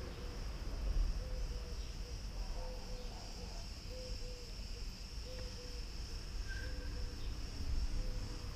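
Insects buzzing steadily in a high, even band, over a low steady rumble, with a short double tone recurring about once a second.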